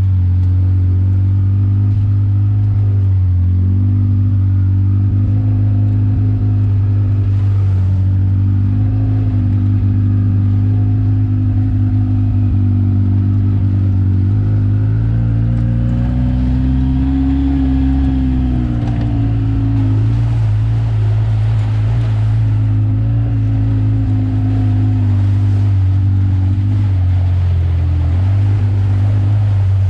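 Off-road vehicle's engine running steadily as it drives slowly along a trail. Its pitch rises and falls back about halfway through.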